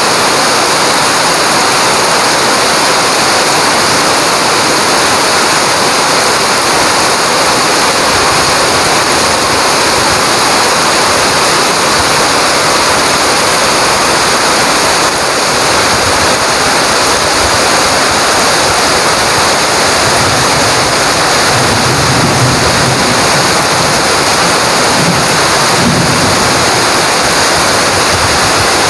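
Heavy rain pouring down on dense foliage and the ground as a steady, loud hiss. A low rumble joins for several seconds past the middle.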